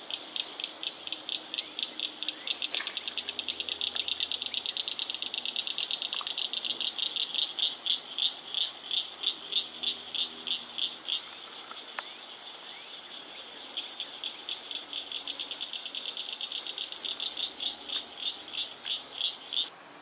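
A frog calling from the water's edge: a long series of sharp clicking notes that speeds up and slows down. It breaks off for a couple of seconds past the middle, then starts again and stops near the end.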